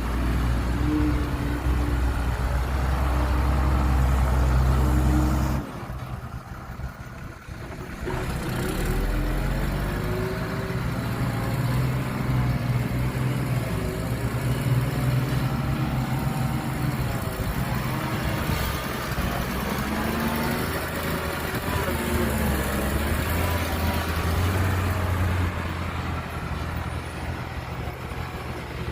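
Heavy diesel engines of construction machinery running: a steady drone that drops away suddenly about five seconds in, then engines working under load with the pitch rising and falling.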